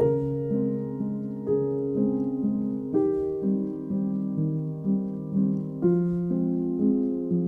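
Background music: slow, calm piano-like notes with sustained chords and a gentle melody.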